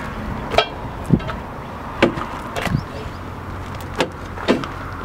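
Steel tire iron knocking and prying against a semi-truck tire and its wheel as the tire is worked by hand. There are about seven sharp, irregular knocks, a few with a brief metallic ring, over a steady low hum.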